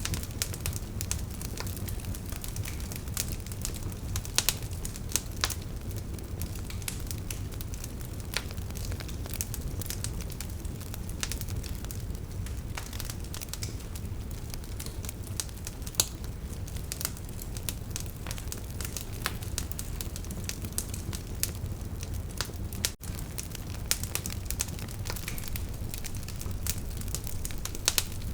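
Wood fire burning in a fireplace: a steady low rumble of flames with frequent sharp crackles and pops from the logs. The sound cuts out for an instant once, about three-quarters of the way through.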